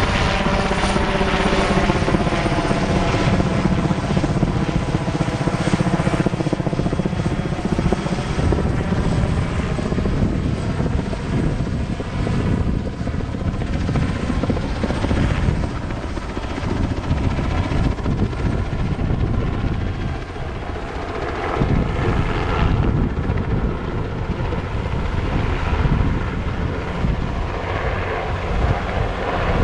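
Sikorsky S-58 helicopter flying low overhead and on past, its engine and rotor running steadily. The pitch of its whine drops over the first several seconds as it passes.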